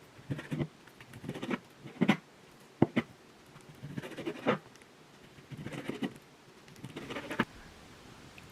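Kitchen knife cutting raw chicken breast into cubes on a cutting board: irregular clusters of knocks and scraping, stopping about seven and a half seconds in.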